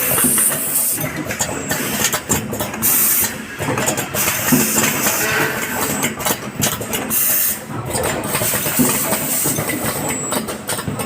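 Automatic soldering machine running: steady machine noise with repeated short hisses that start and stop irregularly.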